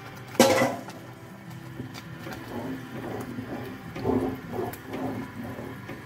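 A wooden spoon stirring thick, porridge-like hareesa of mashed barley, lentils and shredded beef in an aluminium pot, with irregular wet stirring and scraping sounds. A single sharp knock about half a second in is the loudest sound.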